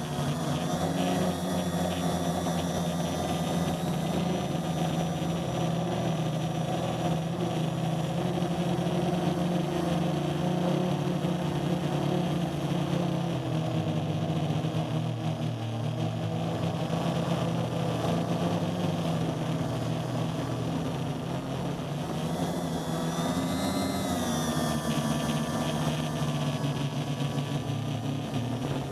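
Homebuilt quadcopter's 1000kv brushless motors and 10x4.5 propellers buzzing in flight, heard close up from the camera on board. The pitch is steady, drops somewhat about halfway through, and rises and falls briefly near the end as the drone manoeuvres.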